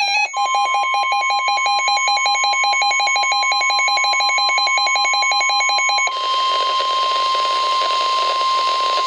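NOAA Weather Radio warning alarm tone: one steady high tone that marks a warning about to be broadcast. For the first six seconds a rapid beeping, about nine beeps a second, sounds with it; then radio hiss comes up under the tone, which cuts off just after the end.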